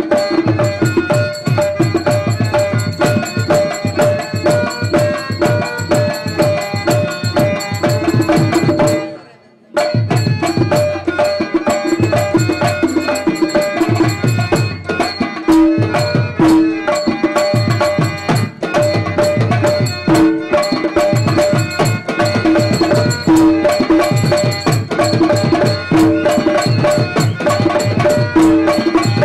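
Live Tamil village-drama dance music: hand drums of the tabla kind beat a fast, steady rhythm over the held notes of a harmonium. The music cuts out for about half a second around nine seconds in, then carries on.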